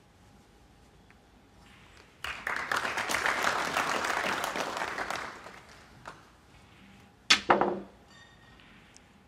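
Snooker audience applauding, starting sharply about two seconds in and fading out after about three seconds. Two sharp clicks follow close together about seven seconds in.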